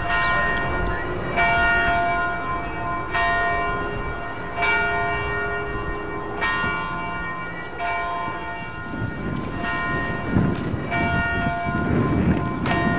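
Church bells ringing, a new stroke about every one and a half seconds with each note ringing on. From about nine seconds in a rough rumbling noise rises beneath the bells.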